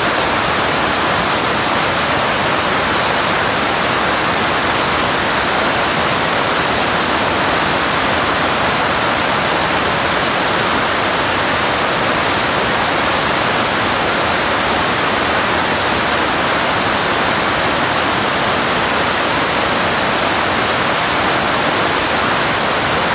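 Floodwater pouring over a dam and crashing into whitewater below: a loud, steady rush of water that does not let up.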